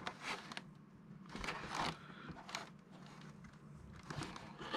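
Intermittent rustling and light scraping of packaging and small parts being handled during an unboxing, in short scattered bursts.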